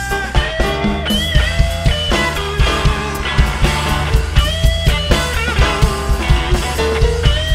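Live blues band playing an instrumental passage: electric guitar holding and bending notes over a bass line and a steady drum beat.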